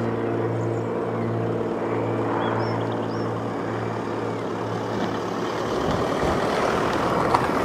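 Jet airliner engines running: a steady droning hum, joined about six seconds in by a louder, rougher rushing rumble.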